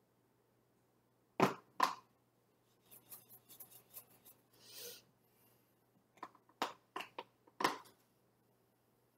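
Small dry-erase whiteboard being wiped clean with an eraser, a soft rubbing about three to five seconds in. Sharp clicks and knocks, the loudest sounds, come twice near the start and several times in quick succession near the end.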